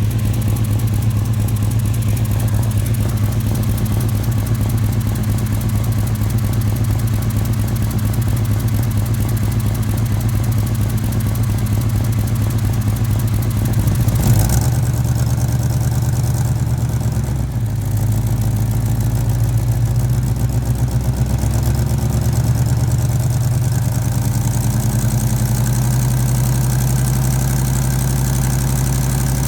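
1989 Chevy C1500 pickup's engine idling through its headers, with the ticking puff of an exhaust leak at the header collectors: both collectors leak, the right one worse. A brief knock about halfway through, after which the engine note shifts slightly.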